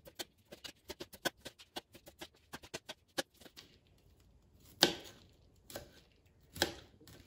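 Kitchen knife chopping broccoli florets on a plastic cutting board: a quick run of light knife taps, about six a second, for the first three seconds or so, then three slower, louder cuts about a second apart.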